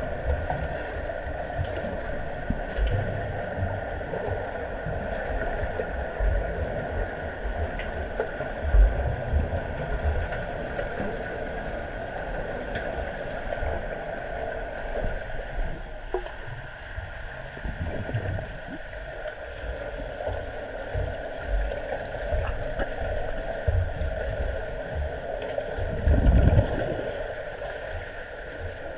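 Underwater swimming-pool sound picked up by a submerged camera: a steady hum and hiss through the water, with irregular low rumbles of water moving against the camera, and a louder rumble near the end.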